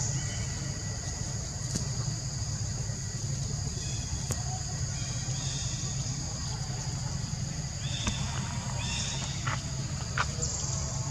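Steady high-pitched insect chorus, holding two unbroken shrill tones over a low steady rumble, with a few faint short chirps about halfway through and again near the end.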